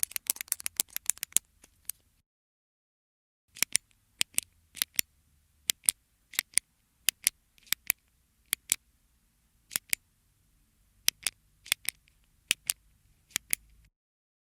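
Retractable click pen being clicked: a fast flurry of clicks for about two seconds, then after a short pause slower, evenly paced clicks, each a quick double snap of the button going down and springing back, about a dozen times before stopping near the end.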